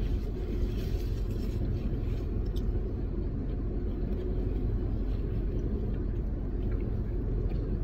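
Steady low rumble of a car's idling engine, heard from inside the cabin, with a few faint clicks.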